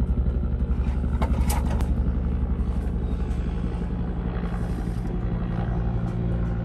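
A motor running steadily with a low, pulsing hum. A few light clicks come about a second and a half in.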